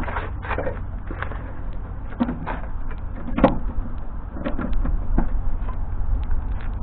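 Scattered knocks and clinks of hand tools and parts being handled on the outboard's lower unit while the flush-port bolt is being unbolted, over a steady low rumble. The sharpest knock comes about three and a half seconds in.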